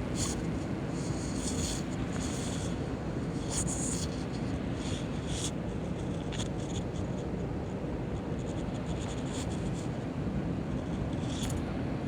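Steady low rumble of cabin noise inside an Airbus A321 in flight. Scratchy rubbing and scraping sounds come and go over it, several in the first half and one near the end.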